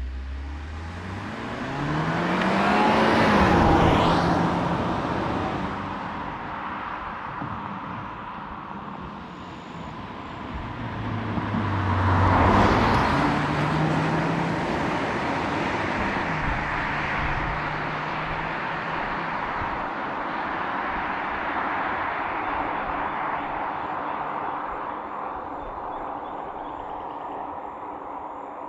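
Genesis G70 Shooting Brake's 2.0-litre turbo-petrol four-cylinder engine accelerating hard, its revs climbing twice, loudest about three and twelve seconds in, then settling into a steadier drone.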